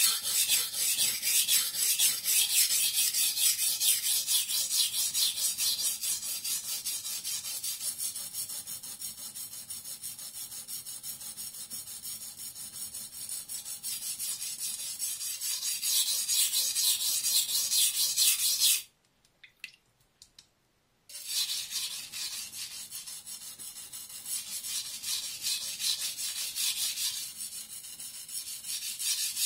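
A Fujiwara Maboroshi gyuto, Shirogami #1 carbon steel, being ground on a water-soaked Suehiro GC-3 #180 coarse whetstone. Each back-and-forth stroke of steel on the rough stone makes a noisy, gritty scrape. The strokes stop for about two seconds a little past two-thirds of the way through, then resume.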